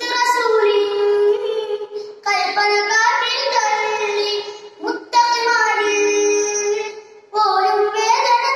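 A boy singing an Islamic devotional song (a madh song), solo voice in drawn-out, ornamented phrases with short breaks for breath between them.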